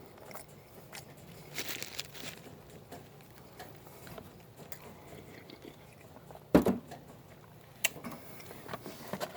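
A person chewing and biting food close to the microphone, with scattered small clicks. A single loud knock about six and a half seconds in.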